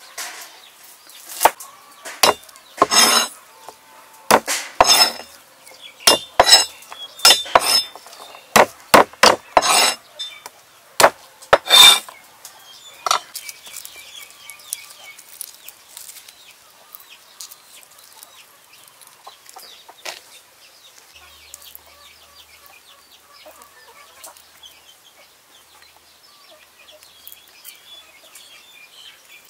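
Knife chopping garlic cloves on a thick wooden board: a run of irregular sharp knocks, some very loud, stopping about thirteen seconds in. After that only faint clucking of chickens in the background.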